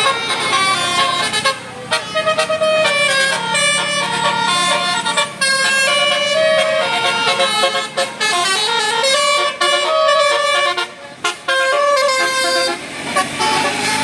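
Bus 'telolet basuri' multi-tone musical horn playing a fast melody of stepped notes, with a few short breaks between phrases.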